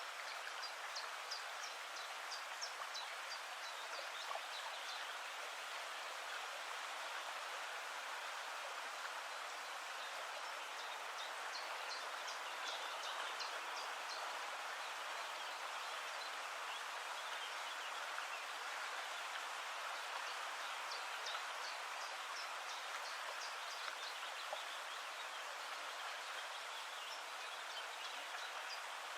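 Outdoor ambience: a steady rushing hiss like running water or light rain, with small birds chirping in short high runs now and then.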